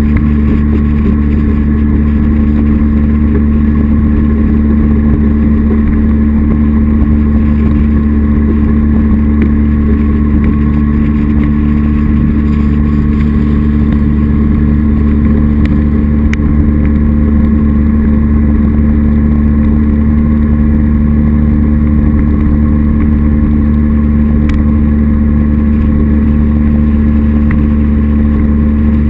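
Jet boat's Mercury SportJet 240 jet drive running at a steady pitch as the boat cruises, a constant engine hum with no change in speed.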